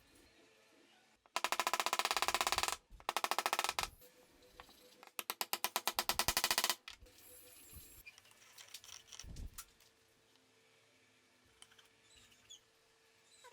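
Three bursts of rapid, evenly spaced rattling clicks from a power tool, each lasting one to one and a half seconds, with a shorter pause between the first two than between the second and third.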